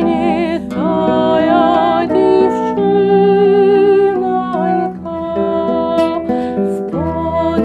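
A woman singing a Ukrainian folk song with a wavering vibrato, accompanying herself on the torban, a many-stringed Ukrainian lute plucked in a lute-like manner, with a transverse flute playing along on held notes.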